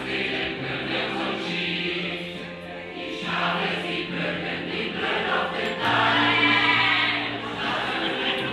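A large crowd of people singing a seafaring song together, in long held notes.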